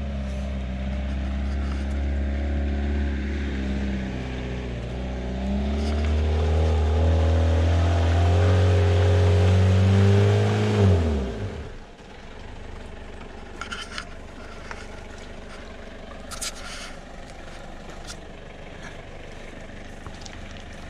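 Four-wheel-drive's engine revving hard under load up a muddy hill, its pitch rising and falling. About eleven seconds in the revs fall away suddenly and it goes much quieter, leaving a low hum with a few light clicks.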